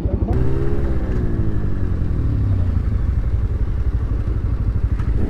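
Bajaj Pulsar 125cc single-cylinder motorcycle engine heard on board at speed, with wind rushing past the helmet. Just after the start its note drops steadily in pitch over a couple of seconds, then runs on lower.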